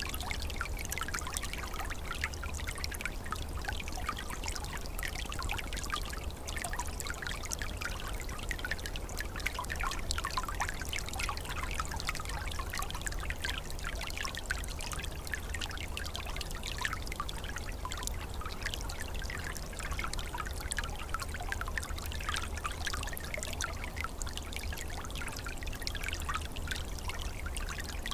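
Small forest stream flowing steadily, water trickling and babbling over stones, with a low steady rumble beneath.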